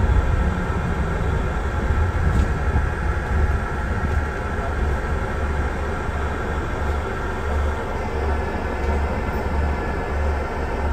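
Double-decker bus heard from inside on its upper deck: a steady low rumble of engine and running noise as it slows and stands in traffic with the engine running.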